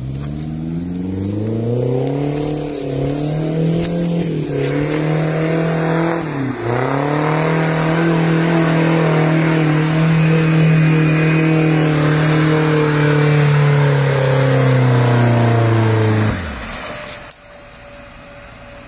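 Off-road vehicle engine revved hard and held at high revs while labouring in deep mud, with a brief dip in revs about six seconds in. Near the end the engine note falls away quickly and stops.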